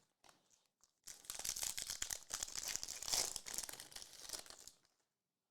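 Plastic foil wrapper of a Prizm Hobby trading-card pack being torn open and crinkled. It makes a dense crackle that starts about a second in and lasts almost four seconds.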